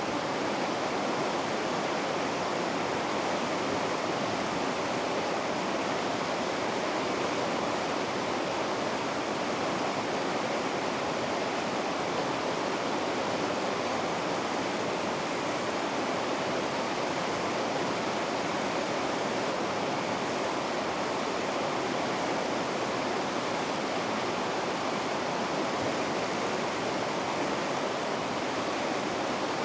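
Rapids on a river: white water rushing steadily and evenly, with no change in level.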